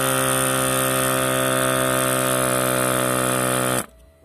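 Portable electric car-tyre inflator (a small air compressor) running steadily while pumping up a bicycle tyre. It is switched off abruptly near the end.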